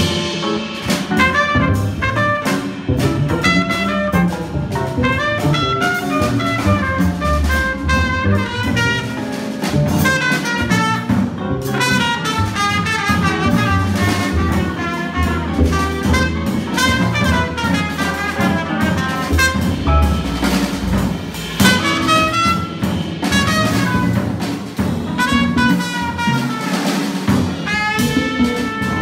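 Small jazz group playing: trumpet lines over a busy drum kit, with upright bass and hollow-body electric guitar.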